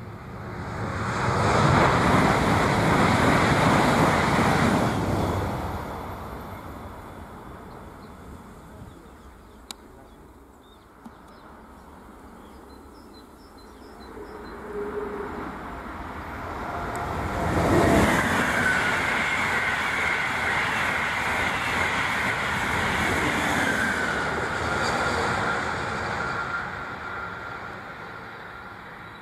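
Two high-speed trains rush past one after the other. First an Italo train goes by in a loud swell that fades after a few seconds. Then, after a quieter spell, a Frecciarossa ETR 500 arrives abruptly about two-thirds of the way in and passes with a steady high whine over its rushing noise, fading out near the end.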